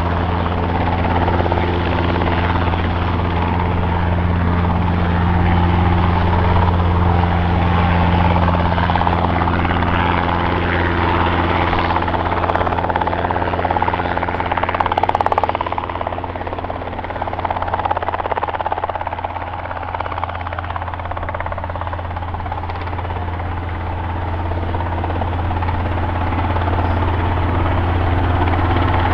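Robinson R22 Beta II helicopter hovering low, its two-blade main rotor and Lycoming four-cylinder piston engine running steadily. The sound eases off for a few seconds past the middle, then builds again.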